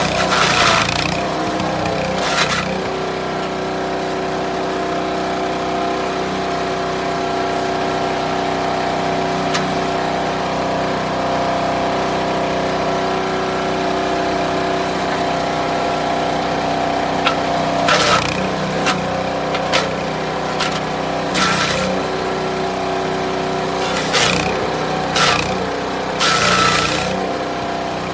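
Gas-powered Landworks wood chipper shredder running steadily at speed, with short, loud spells of chipping noise as branches are fed through: two near the start and a cluster of them in the last ten seconds.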